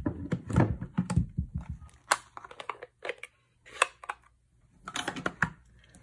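Plastic stamp ink pad cases clicking and knocking as they are handled and set down on the table: a quick run of clicks at first, then scattered single knocks.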